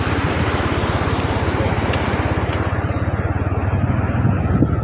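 A vehicle engine running steadily, with an even, rapid low pulsing and wind hissing over the microphone.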